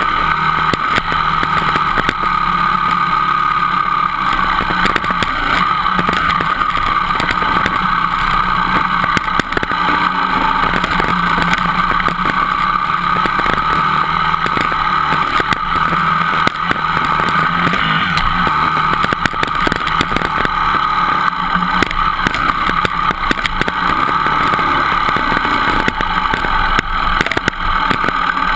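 Dirt bike engine running steadily under way on a rough trail, heard close from a camera mounted on the bike, with frequent small knocks and rattles.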